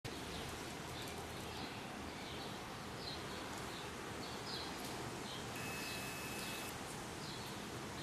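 Steady hum of periodical cicadas, with short high chirps repeating about twice a second and a thin steady whistle for about a second midway.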